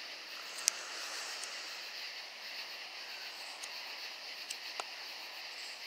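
Steady faint outdoor hiss with a handful of short sharp clicks or snaps, the loudest less than a second in and two more close together near the end.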